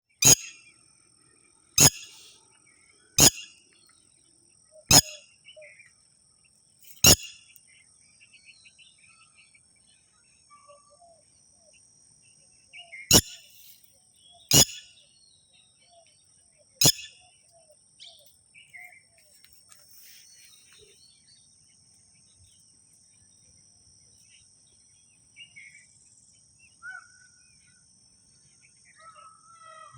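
Eight sharp, loud knocks at irregular intervals, all in the first seventeen seconds, over faint scattered bird chirps and a steady high-pitched drone.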